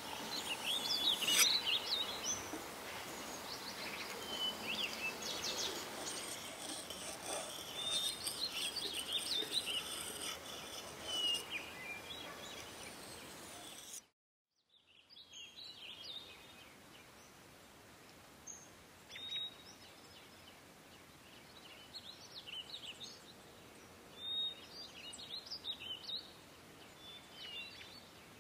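Outdoor background noise with small birds chirping now and then; the sound drops out briefly about halfway through, and the noise is quieter after that.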